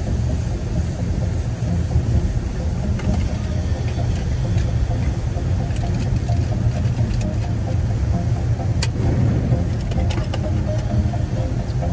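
Car driving along: a steady low rumble of road and engine noise, with a few scattered sharp clicks.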